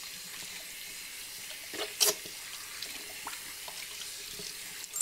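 Hands being washed under a running tap at a sink: a steady hiss of flowing water with a couple of louder splashes about two seconds in.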